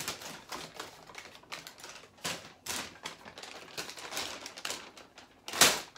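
Brown paper takeout bag rustling and crinkling as it is handled and rummaged through, a rapid irregular crackle with a louder crackle near the end.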